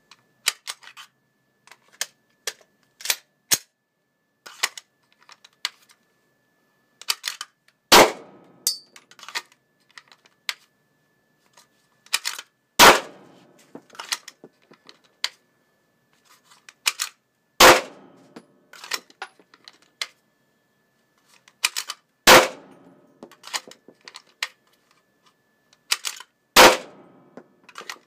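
Glock pistol fired five times, roughly every four to five seconds, each shot followed by a short echo. Between the shots come smaller clicks and rattles of the pistol and holster being handled.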